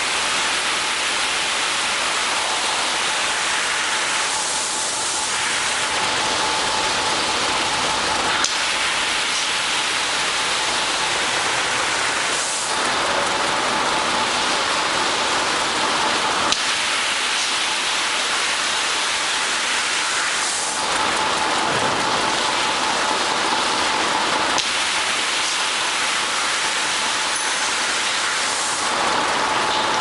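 Automatic carpet washing machine's spray nozzles jetting water onto a rug: a steady rain-like hiss, over a faint steady hum from the running machine, with a few brief knocks.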